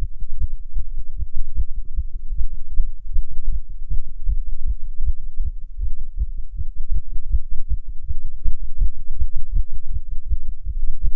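Human heartbeat beating fast, a steady run of short, low thumps. The rate is raised by nicotine from smoking a cigarette, in a non-smoker.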